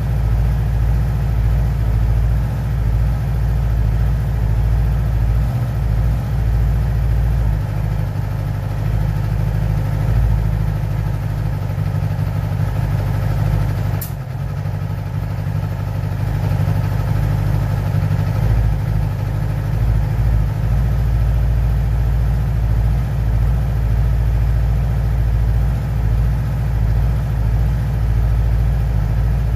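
2011 Yamaha R6's 600 cc inline-four engine idling with an irregular puffing and popping from the exhaust. A single sharp click sounds about halfway through.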